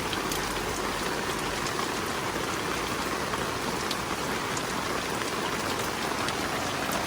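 Heavy rain pouring down steadily, a dense even hiss of rain hitting surfaces with scattered drop patters.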